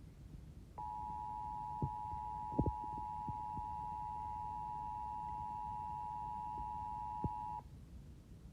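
Emergency Alert System attention signal: two steady tones sounding together, starting about a second in and cutting off suddenly near the end. A few faint knocks sound behind it.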